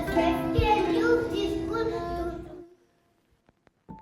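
Music with a high singing voice, cutting off abruptly about two and a half seconds in, followed by near silence with a few faint clicks.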